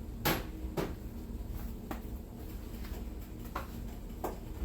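A few light clicks and knocks from handling a black pepper spice container and a measuring spoon, the sharpest about a quarter second in, over a low steady hum.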